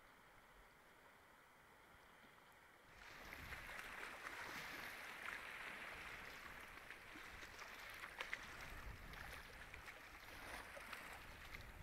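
Small lake waves lapping and splashing, setting in about three seconds in; before that, only a faint hiss.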